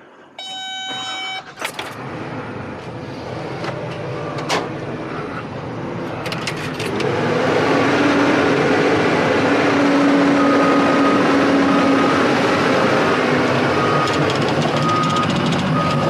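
Peterbilt 589 semi truck running, its sound growing louder about seven seconds in and staying steady. A short electronic tone sounds just after the start, and short repeated beeps come in the second half.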